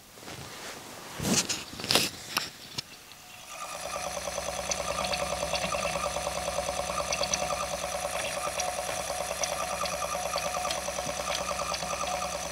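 Schneider CDP7000 CD player's disc mechanism heard up close: a few handling knocks, then a steady fast-pulsing mechanical chatter with a hum beneath it. It comes from the laser pickup jumping and searching on the disc, which the repairer takes for a tracking problem.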